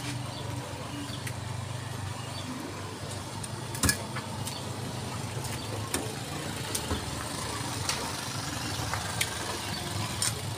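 Steel cleavers chopping whole chickens on round wooden chopping blocks: irregular sharp knocks, the loudest about four seconds in, over the steady low hum of an idling engine.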